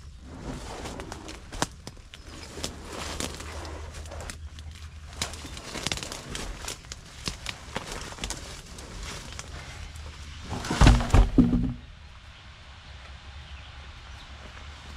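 Rustling and scattered light clicks in brush, with a louder burst of low knocking thumps close to the microphone about eleven seconds in, lasting about a second.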